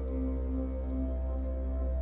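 Slow ambient meditation music: long held tones over a deep, steady drone, one of the tones pulsing gently, with no beat.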